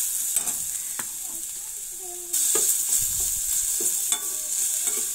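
Crushed ginger, garlic and green chilli sizzling in a spoonful of hot oil in a steel kadhai, being lightly sautéed, while a slotted metal spatula scrapes and taps the pan as it stirs. The sizzle gets louder a little over two seconds in.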